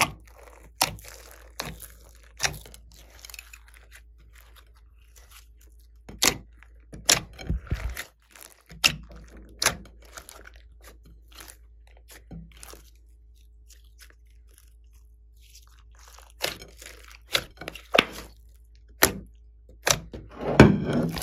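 Slime mixed with clay and foam beads being kneaded and folded by hand, giving irregular sharp pops and crackles as trapped air bursts, with a longer wet squelch near the end.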